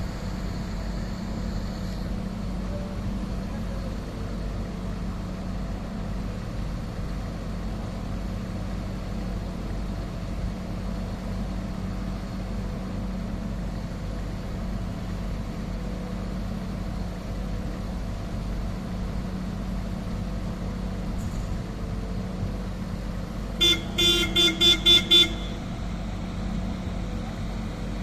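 Diesel engine of a MAN truck-mounted Schwing Stetter concrete pump running steadily, driving the hydraulics as the boom is lowered and folded. About 24 seconds in, a horn sounds about six short toots in quick succession, louder than the engine.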